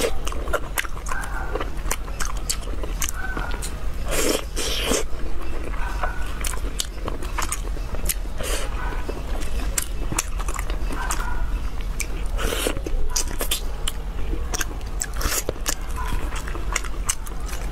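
Close-miked mouth sounds of eating saucy braised pork: biting and chewing with many sharp, irregular clicks and smacks, over a low steady hum.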